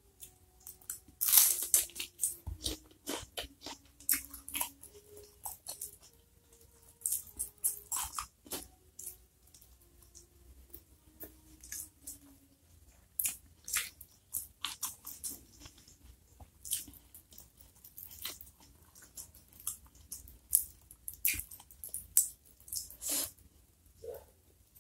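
Close-miked eating: crunching and wet chewing of mouthfuls of rice, chilli-topped smoked fish and raw vegetables eaten by hand. There are many short, crisp crackles, the loudest about a second in.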